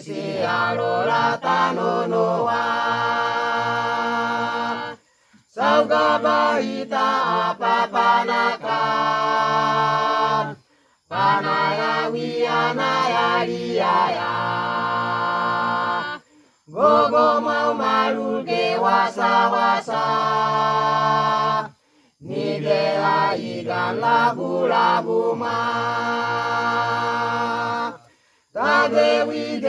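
Mixed village choir of men, women, boys and girls singing a hymn-like song in the Misima language, in phrases of several seconds that each end on a held chord, with short breaths between them.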